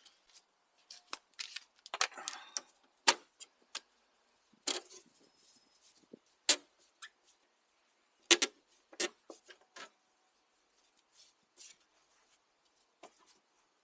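Irregular sharp clicks and knocks, about a dozen spread out with pauses between them, and a short rustle about two seconds in: hands and tools working on a car's rear plastic number plate holder.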